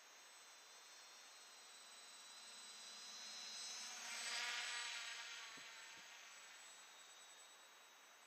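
Hexacopter's six small brushless motors and 8-inch propellers whining and buzzing as it flies low past, growing louder to a peak about four seconds in, then fading as it climbs away.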